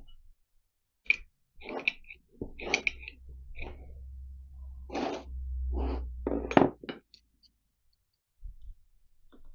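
Heavy cast-iron bearing housing plate being turned over and set down on a workbench: a run of sharp metal knocks and clunks over about six seconds with a low rumble under them, then a few light taps near the end.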